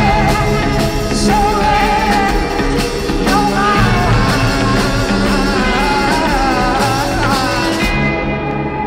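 Live rock band playing with a sung vocal line over a full band, recorded from the audience. Near the end the top end drops away and a few held tones remain as the song winds down.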